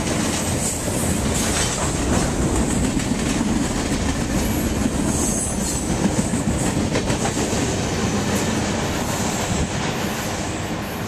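Freight cars of a manifest train rolling past close by: a steady rumble of steel wheels on rail with a clickety-clack over the rail joints. The rear of the train clears near the end, and the sound eases a little.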